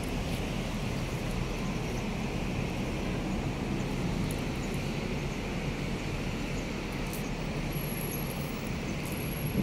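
Steady hum of city road traffic, an even noise with no distinct events.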